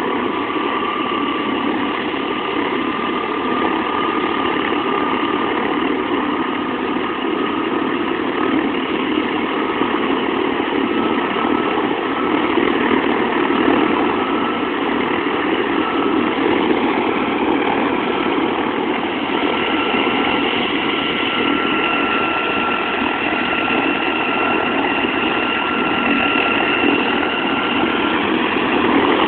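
Helicopter engine running steadily on the ground, with a high turbine whine that creeps slowly up in pitch.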